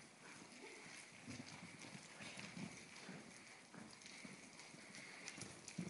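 Faint, dull hoofbeats of a Gypsy Vanner horse moving over soft arena sand, coming at an uneven pace.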